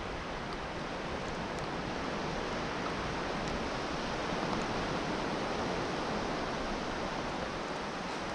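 Steady wash of sea surf breaking on the shore, swelling a little midway.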